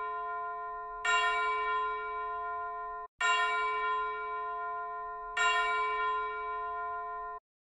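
A tubular-bell chime sound effect striking the same note three times, about two seconds apart. Each strike rings on until the next, the ringing of a strike from just before is still going at the start, and the last note cuts off abruptly near the end.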